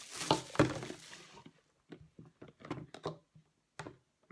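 Packaging of a small egg boiler being opened by hand: about a second and a half of crinkling and rustling wrap, then a string of light knocks and taps as the box and its parts are handled.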